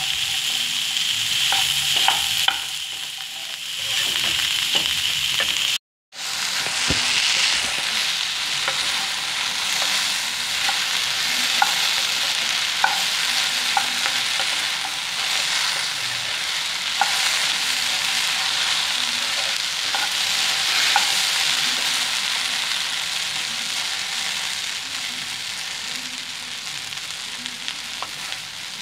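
Chopped okra sizzling as it fries in a non-stick pan, with a wooden spatula scraping and clicking against the pan as it is stirred. The sound cuts out completely for a moment about six seconds in, then carries on, growing a little quieter toward the end.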